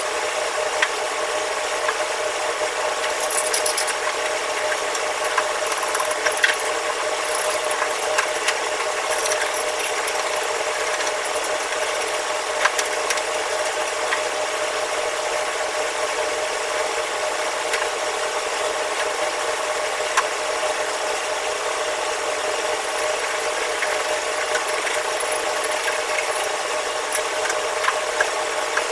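Steady noise of a commercial wok range and its exhaust hood running, with a constant hum. Over it come scattered scrapes and clinks of a wok being scrubbed by hand.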